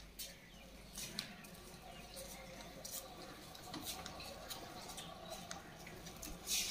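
Faint, scattered light clicks and taps, irregular and a second or so apart, over a low background hum.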